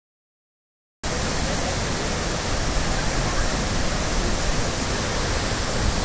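Silence for about a second, then the steady rush of a waterfall cascading over rocks, cutting in abruptly at full level.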